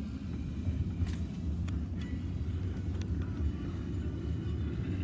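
Car driving, heard from inside the cabin: a steady low road and engine rumble, with a few faint clicks.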